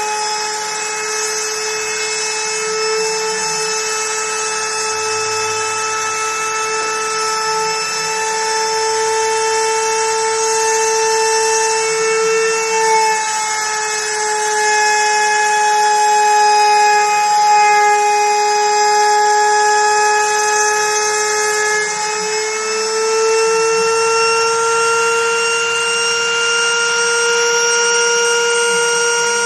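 CNC router spindle running with a steady high whine while it cuts wood. Its pitch shifts slightly a couple of times as the load on the cutter changes.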